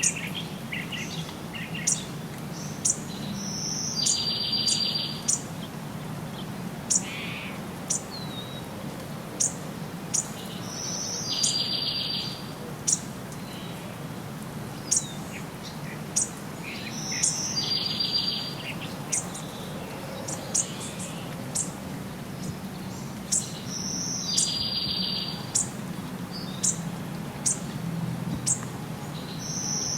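Songbirds calling: short, sharp high chirps about once a second, with a buzzy trill lasting about a second that comes back every six to seven seconds, over a steady low hum.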